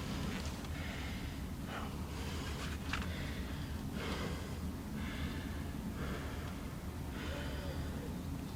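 Bow drill worked on a fireboard: rasping strokes of the spindle about once a second, in a steady rhythm.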